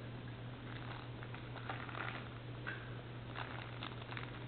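Faint, intermittent rustling and scraping of cardboard and paper packaging being handled as a camera box is opened, over a steady low hum.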